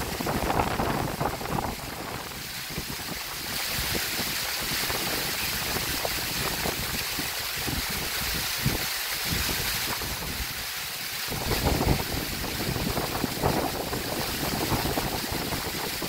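Tall waterfall spilling and splashing down a rock face, a continuous rush of water, with wind buffeting the microphone in gusts.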